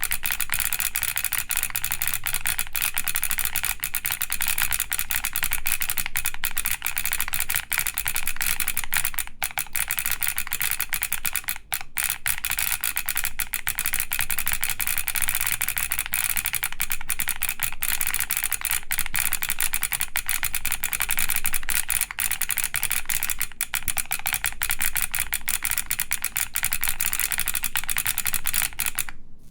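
Fast continuous typing on a G-Square Studio Vintage 60S mechanical keyboard with Vertex V-One switches, DCS keycaps and a polycarbonate plate, with the keyboard's solenoid firing a click on each keystroke. The clacking is dense and unbroken, and stops just before the end.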